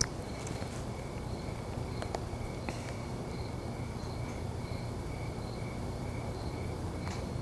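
Crickets chirping in an even, repeating rhythm over a steady low hum, with one sharp click right at the start.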